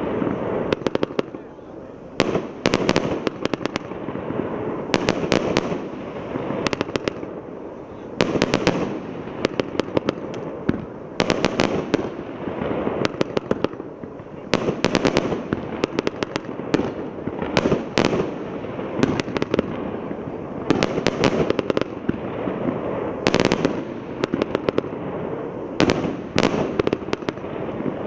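A 120-shot, 1-inch consumer fireworks cake firing: sharp bangs come in quick clusters every second or two, over a continuous rumble between them.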